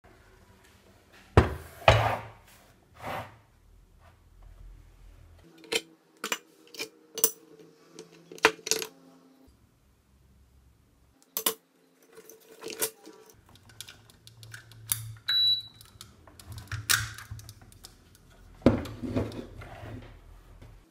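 Hands handling a gutted induction cooker and its parts on a wooden tabletop: a string of separate knocks, clicks and light metallic clatter, with one short high beep about fifteen seconds in.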